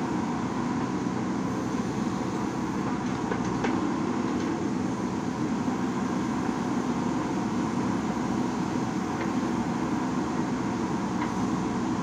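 JCB backhoe loader's diesel engine running with a steady drone while the backhoe arm swings and digs, with a few faint clicks.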